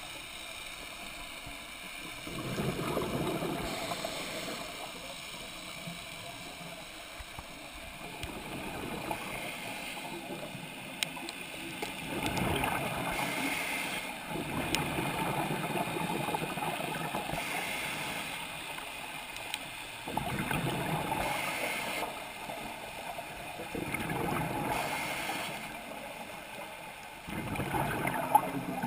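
Scuba diver's exhaled bubbles bubbling and rushing from the regulator, heard underwater through a camera housing, in bursts every four to five seconds over a steady hiss.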